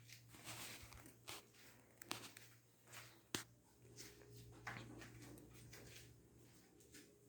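Near silence: faint room tone with a few soft handling clicks and knocks.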